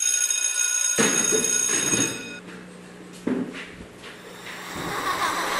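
A steady ringing tone made of several fixed pitches, like a bell, sounds for about two and a half seconds and stops. A low hum and a single knock about three seconds in follow, with room noise rising near the end.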